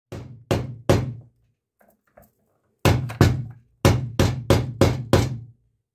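Hammer striking a wooden-handled chisel that is being driven into a wooden desk to cut part of it away. The blows come about two or three a second: three, then after a pause of nearly two seconds a steady run of about eight more.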